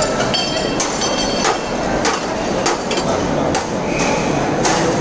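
Steel tumblers and plates knocking and clinking in a busy dining hall: repeated sharp knocks, some with a brief metallic ring in the first second or so, over a steady background din.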